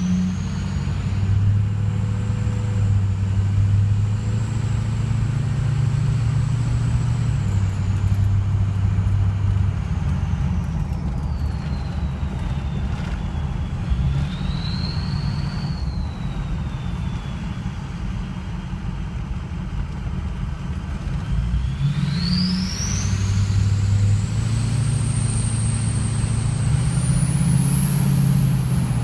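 Ford 6.0 Powerstroke diesel with a 2003 VGT turbo whistling over the engine's rumble. The whistle rises as the turbo spools up and holds high. It falls back to a lower pitch for a while, with one brief lift, then climbs to its highest pitch near the end.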